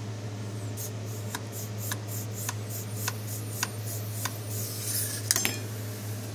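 Light metallic clinks of an AR-15 upper receiver and gunsmithing tools being handled, with a louder metal clatter about five seconds in as a part is set down. Faint ticks about every half second and a steady low hum run underneath.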